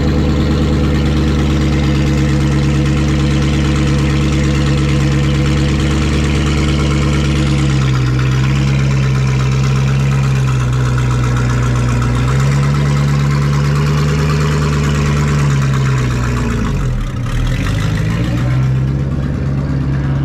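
Ford Mustang race car's engine idling loudly and steadily. Its pitch steps down and back up once, then dips and climbs again as the car pulls away near the end.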